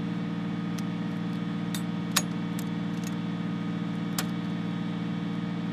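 An engine running steadily at idle, an even low hum, with scattered light metallic clicks and ticks over it; the sharpest click comes about two seconds in.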